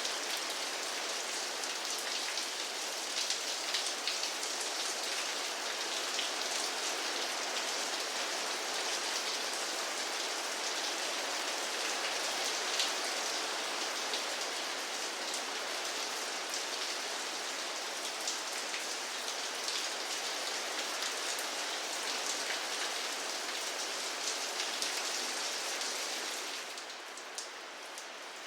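Steady rain falling on a surface, with individual drops ticking through the hiss. The rain eases and gets quieter near the end.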